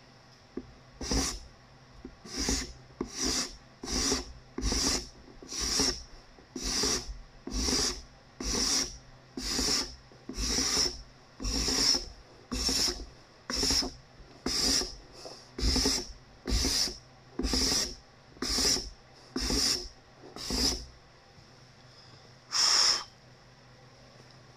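Steel card scraper drawn over a cedar board, taking fine shavings: about twenty quick scraping strokes, roughly one a second, then after a short pause one last stroke.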